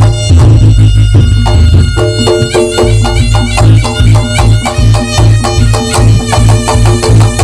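Loud live Javanese reog accompaniment: a shrill reed wind instrument plays a shifting melody over fast, dense drumming and a heavy bass.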